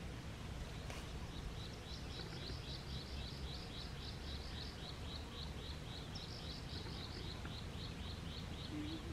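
A bird calling a long, even series of short high chirps, about four a second, starting about a second in, over a steady low rumble.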